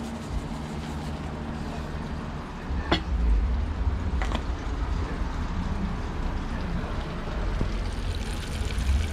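A low rumble, growing stronger about three seconds in, with two sharp knocks about a second and a half apart: a plastic salt shaker being handled and set down on a wooden table.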